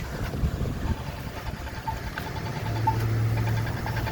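Accessible pedestrian signal push button ticking its steady repeated beep at the crosswalk, over passing traffic, with a vehicle's low engine drone joining over the second half.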